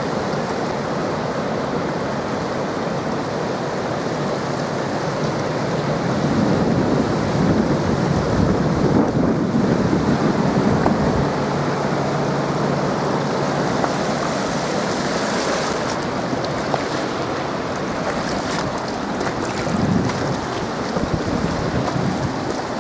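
Steady roar of water rushing through the open gates of a hydroelectric dam, with wind buffeting the microphone; it swells a little partway through.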